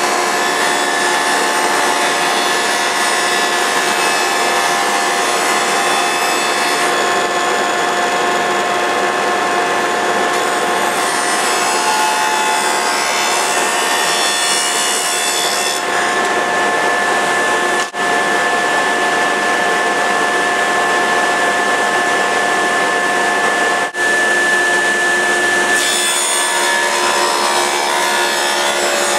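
Woodworking power tool running steadily with a steady whine over a loud rush, machining wood. The texture shifts every few seconds, and the sound drops out for an instant twice.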